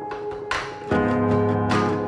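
Background music: plucked notes ringing over held tones.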